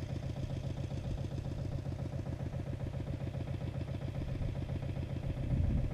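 Agria 8900 articulated tractor's Lombardini diesel engine running steadily with a fast, even chug, a little louder near the end.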